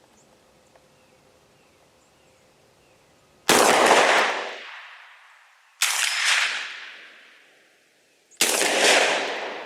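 Three shots from a 12-gauge Centurion BP12 shotgun fed from a 15-round drum, the first about three and a half seconds in and the others roughly two and a half seconds apart. Each is loud and rings on with a long fading echo.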